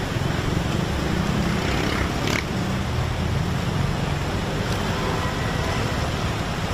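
Steady rush of fast-flowing floodwater, with a churning low rumble.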